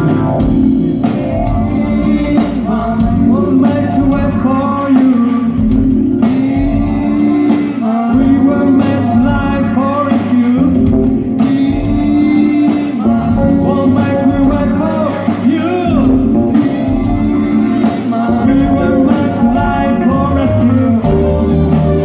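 A rock band playing a song, a voice singing over guitar.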